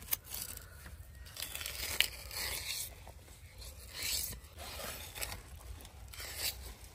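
A large knife scraping and slicing along a singhara catfish's backbone, separating the fillet from the bones in short passes, with a couple of sharp taps of the blade.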